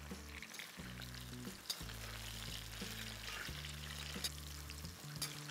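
Boiled baby potatoes shallow-frying in sesame oil in a steel kadai, the oil sizzling steadily as a perforated metal ladle stirs them, with a couple of sharp clicks of the ladle against the pan.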